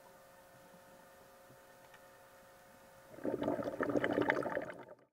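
Faint steady underwater hum, then about three seconds in a loud burst of bubbling that lasts under two seconds and cuts off suddenly.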